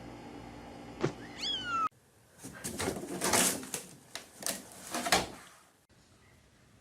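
A cat's single meow, falling steadily in pitch, over a steady hum with a click just before it. After a sudden cut, a cat gives about five harsh, noisy cries in quick succession.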